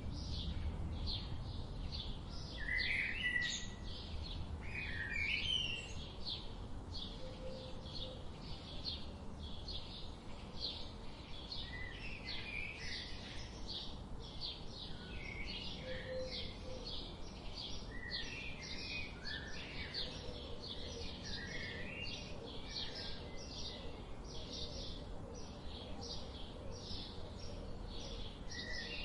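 Songbirds singing and chirping: a dense run of quick, high, repeated notes throughout, with lower slurred chirps now and then, over a low steady background rumble.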